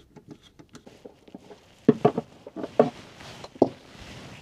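Screwdriver backing out the screw of a metal battery hold-down bracket, a run of small rapid clicks. From about two seconds in come several louder knocks and clatter as the bracket is worked loose, with rustling.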